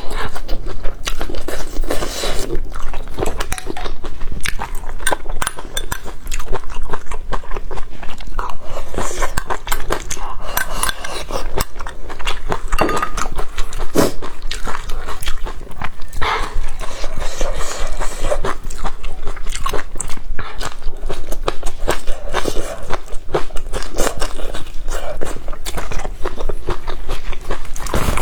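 A person chewing and biting into crunchy food right at the microphone, with a dense run of wet crunches and clicks.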